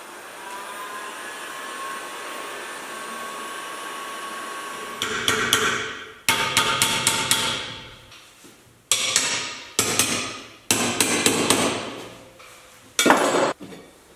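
A heat gun blows steadily for about five seconds. Then comes a run of a dozen or more sharp, ringing hammer blows on the heated aluminium wheel carrier of a Porsche 911, in quick bursts, to knock loose parts seized by contact corrosion.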